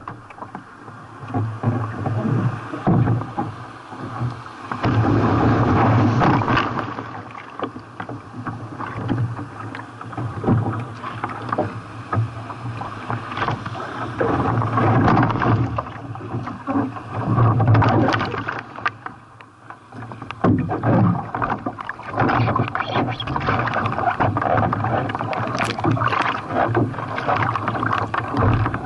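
Sea water rushing and splashing around a kayak being paddled in waves, swelling and easing every few seconds with sharp splashes.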